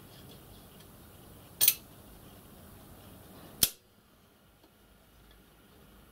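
Mole grips (locking pliers) clamping onto a steel bicycle spoke: two sharp metallic clicks about two seconds apart as the jaws are closed and snapped locked.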